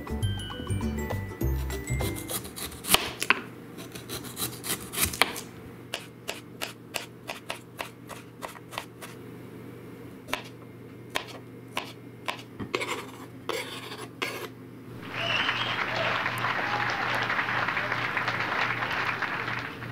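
Kitchen knife cutting beet and cherry tomatoes on a cutting board: a long run of sharp knocks, some in quick bursts. For the last few seconds there is a steady rough rubbing, scraping noise instead, and soft music plays underneath.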